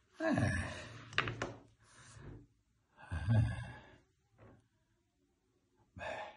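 A man's voiced, breathy sighs: a long one at the start, another about three seconds in, and a short one at the end.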